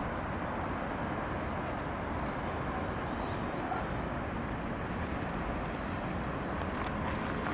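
Steady city ambience: a continuous hum of distant traffic from the streets below, with a few faint ticks near the end.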